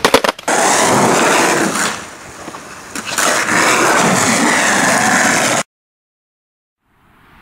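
Skateboard wheels rolling on concrete close to the microphone, a loud steady rumble after a few quick clicks at the start. The sound cuts off abruptly into silence near the end.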